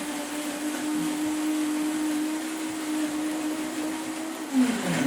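Vita-Mix blender running at a steady high speed, blending the cranberry glaze. Near the end it is switched off and the motor's whine drops in pitch as it winds down.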